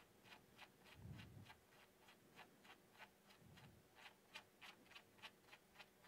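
Value knob of a Roland VR-1HD streaming mixer being turned through menu settings: faint detent clicks, about three a second, with two soft low thuds about a second and three and a half seconds in.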